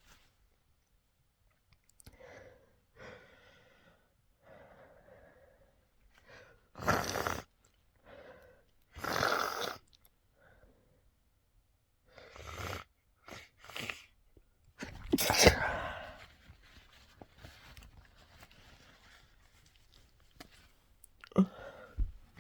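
A person with a head cold sneezing several times in a row. Softer breathy intakes lead into the sneezes, and the loudest one comes about fifteen seconds in.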